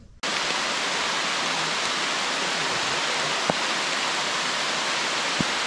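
Steady rain falling on the forest canopy and undergrowth, an even hiss that begins abruptly just after the start, with a couple of faint ticks from drops.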